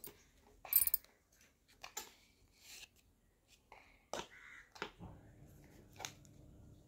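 A few scattered plastic clicks and knocks from a baby walker as a baby's hands tap and press its toy tray, the loudest knock about a second in.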